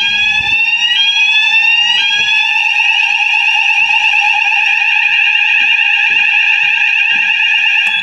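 Building fire alarm sounders going off during a weekly alarm test. A rising sweep tone repeats about once a second, changes to a steady tone about two seconds in, then cuts off suddenly near the end as the system is silenced.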